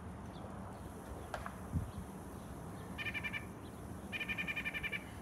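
Two rapid, evenly pulsed animal trills, a short one about three seconds in and a longer one just after four seconds, over a steady low rumble. A single soft low thump comes a little before the middle.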